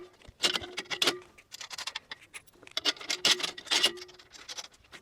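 Bolts being tightened by hand tool on a metal kayak rack frame: a series of short scraping strokes, roughly one or two a second, some with a faint metallic ring.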